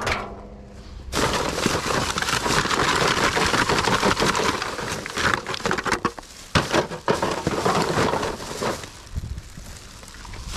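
Dense crackling and crunching of rubbish being rummaged through and handled, starting about a second in and easing off near the end.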